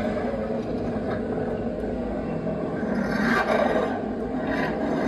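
Animated Fear Valley Wolf Halloween prop playing a recorded wolf growl through its speaker, a continuous rough growl that swells louder about three seconds in.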